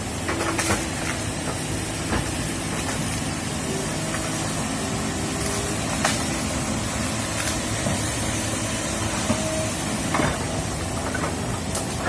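Diesel engine of a working excavator running steadily, with a few short metallic knocks.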